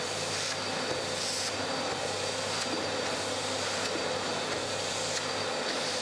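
Makita 1000 W construction vacuum running steadily, its nozzle pressed on top of a one-litre oil bottle and straining to lift it by suction. A steady whine sits over the rush of air, and the hiss swells briefly a few times. The suction is not enough to lift the bottle.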